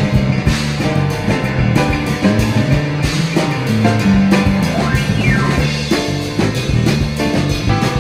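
Background music, an instrumental stretch of a song with a drum kit keeping a steady beat; about five seconds in, one note slides down in pitch.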